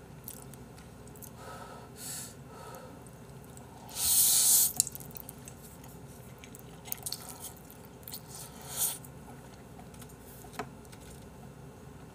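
A person slurping up a mouthful of Chapagetti black-bean-sauce instant noodles, one loud slurp lasting under a second about four seconds in, then chewing with small wet mouth clicks and a shorter slurp near nine seconds.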